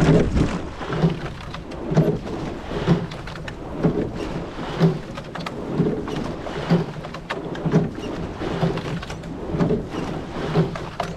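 Sculling oars working through river water in a steady rowing rhythm: a regular splash and wash about once a second over a continuous rush of water along the hull.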